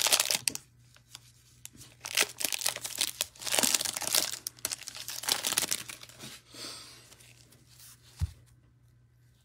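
Clear plastic wrapper of a Donruss football card hanger pack being torn open and crinkled, in bursts of rustling. A single soft thump comes near the end.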